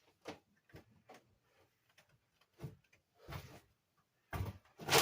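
A few scattered short scuffs and knocks, spaced irregularly, with a louder run of them near the end.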